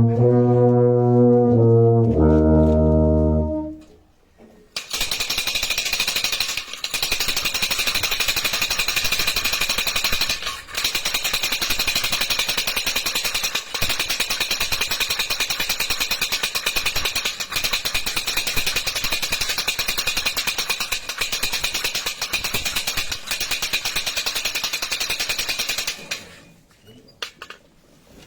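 A brass band holds low chords that end about four seconds in. Then a troccola, a wooden ratchet rattle, clatters rapidly and without let-up for about twenty seconds, with a few brief breaks, before stopping.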